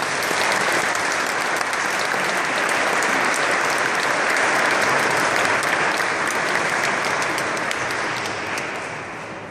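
A church congregation applauding: clapping that swells up quickly, holds steady, and dies away near the end.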